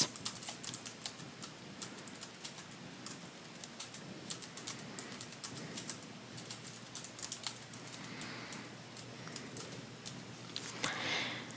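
Someone typing a short sentence on a computer keyboard: faint, quick key clicks in uneven runs, with a brief soft hiss near the end.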